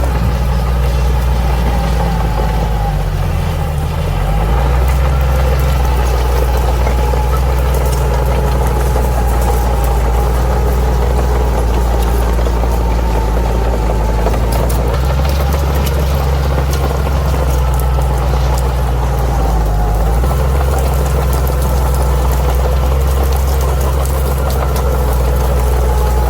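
Bulldozer's diesel engine running steadily while working, its pitch dipping briefly about four seconds in and again about twenty seconds in.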